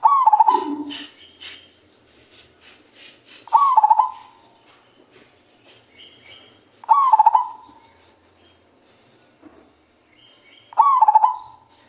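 Deep-voiced male zebra dove cooing: four phrases of quick stuttering coos, about one every three and a half seconds. Faint high chirps from other small birds sound between the phrases.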